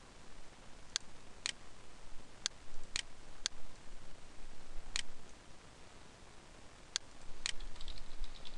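Computer mouse clicks: eight short, sharp clicks, several in pairs about half a second apart, while working in the software, with a faint quick ticking near the end.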